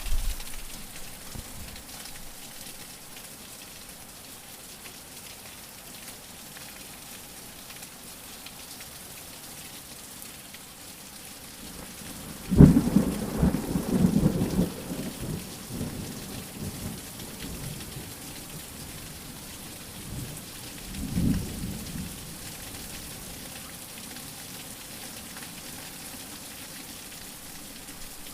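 Steady rain with a sudden thunderclap a little before halfway that rumbles on for a few seconds, and a fainter roll of thunder about three quarters of the way through.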